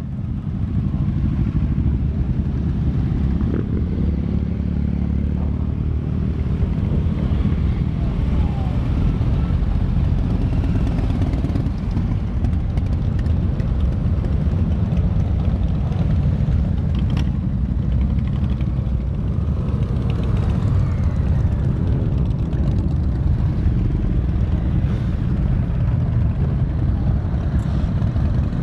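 A procession of motorcycles, many of them V-twin cruisers, riding slowly past one after another. Their engines make a steady low rumble, with a few rising and falling revs.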